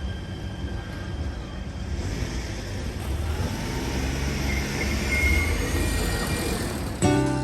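Train rumbling past on the railway, its noise swelling through the middle. Background music starts just before the end.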